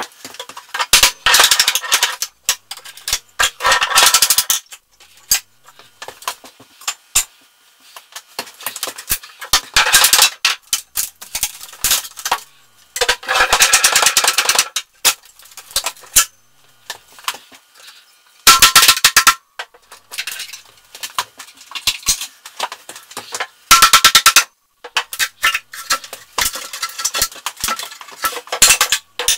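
Old wooden kitchen wall cabinet being worked loose and pulled off the wall: repeated loud bursts of rapid cracking, rattling and knocking, each a second or two long, with short pauses between.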